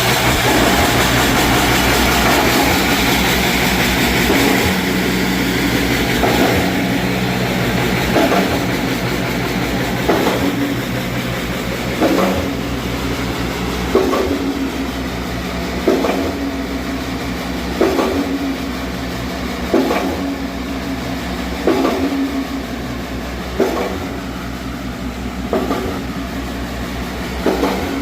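Concrete mixer pump running steadily under test, its engine humming, with a short knock about every two seconds as the pump cycles.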